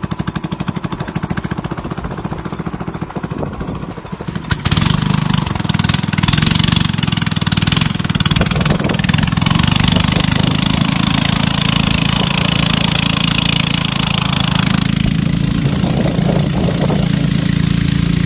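Wooden river boat's engine running with a fast pulsing beat, then suddenly much louder about four and a half seconds in as it is opened up. After that it runs steadily at speed, over the rush of water from the hull.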